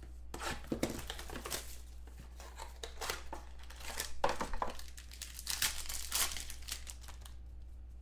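Foil wrapper of a pack of football trading cards crinkling and tearing as it is ripped open and handled, in irregular bursts of crackle over a steady low hum.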